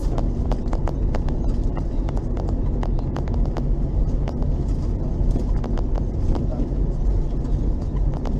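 LAZ-699R bus's ZIL-375 V8 petrol engine running steadily, a low drone with frequent irregular clicks and rattles over it.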